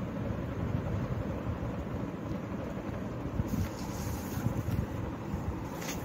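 Steady low rumbling background noise, with no distinct events.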